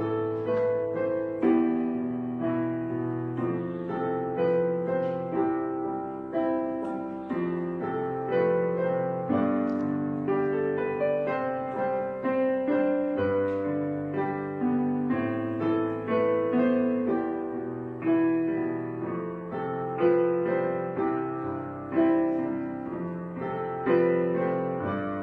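Background piano music: a slow melody of struck notes that ring and fade over sustained chords.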